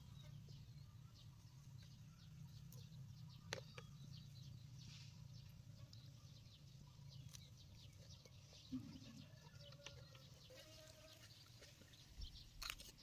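Near silence: a faint low hum with a few scattered small clicks.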